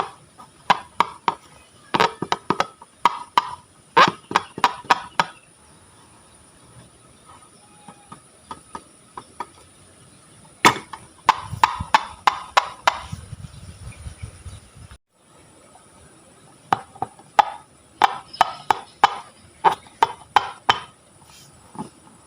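Slime being squeezed and poked, giving runs of sharp wet pops and clicks in several bursts with short pauses between.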